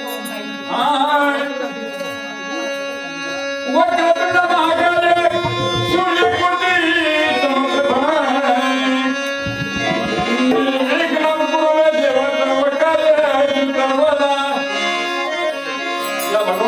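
Male folk singer singing a slow, drawn-out melodic line of a Marathi saki, over steady held harmonium notes and a tabla-like hand drum.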